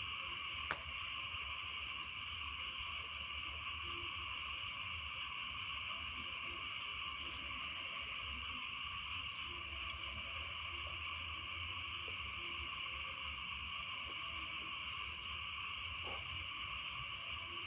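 Dense, steady night chorus of frogs calling after rain, with insects trilling over it. A single sharp click just under a second in.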